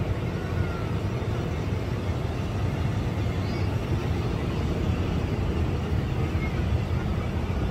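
Airliner cabin noise: a steady low rumble of engines and rushing air.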